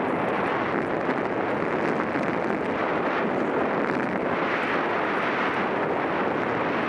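Steady rush of wind buffeting a helmet-mounted camera's microphone as a mountain bike rolls fast down a dirt singletrack, mixed with the tyres' noise on the trail.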